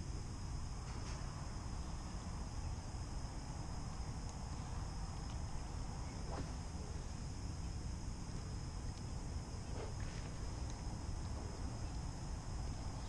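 Evening insect chorus, a steady high-pitched chirring, over a low rumble, with a couple of faint ticks.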